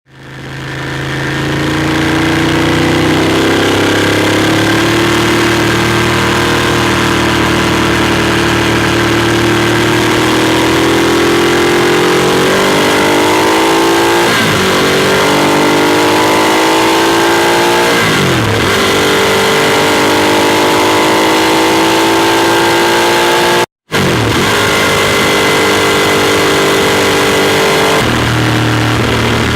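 A Ducati Monster 821's Testastretta L-twin heard on board while riding: the engine note fades in, then pulls steadily with the revs slowly climbing. Three times in the second half the revs drop sharply and climb again, as at gear changes, over a steady rush of wind. The sound cuts out for an instant shortly before the last of these.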